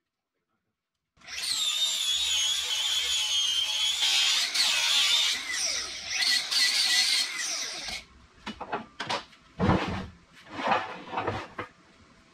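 A handheld power grinder running on steel box tubing, a loud high-pitched whine that wavers under load for about seven seconds and then stops. It is followed by several scattered metal clanks and knocks as the steel is handled.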